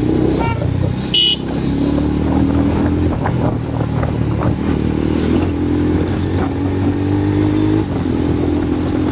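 Motorcycle engine running under way with heavy wind buffeting, as picked up by a phone's built-in microphone without a wind-shielded external mic; the engine note rises and falls as the rider speeds up. A short high beep sounds about a second in.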